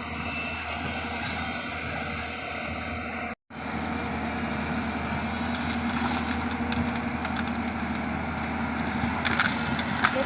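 Large tracked excavator's diesel engine running steadily. The sound drops out for an instant about three seconds in, then resumes, with a few sharp clacks near the end.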